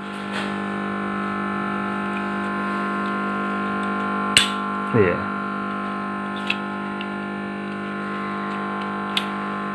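Sharp plastic clicks from a TV remote's case being pried apart with a screwdriver as its snap clips let go, the loudest about four and a half seconds in and two fainter ones later, over a steady electrical hum. A brief low vocal sound follows the loud click.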